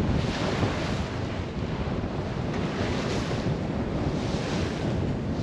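Wind buffeting the microphone over the rush of waves along the hull of a sailboat under sail, the hiss surging and easing every second or so.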